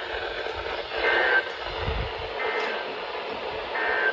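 Emergency Alert System end-of-message (EOM) data bursts: three short digital warbles about 1.3 s apart over radio static, marking the end of the warning message.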